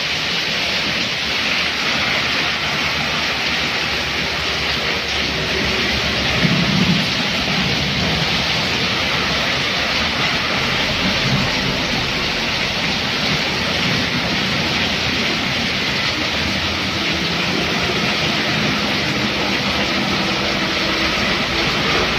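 Heavy rain falling steadily in a constant hiss. Underneath, the engines and tyres of passing motorbikes and vehicles rumble through the water on the road, with a truck going by near the end.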